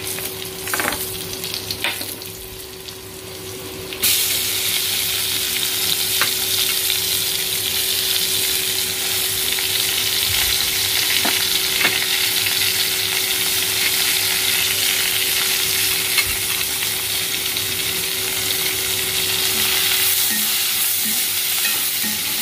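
Sliced onions hitting hot coconut oil in a cast-iron kadai: a sudden loud sizzle about four seconds in, which keeps going steadily as they fry. A wooden spatula stirs them, with occasional knocks against the iron pan.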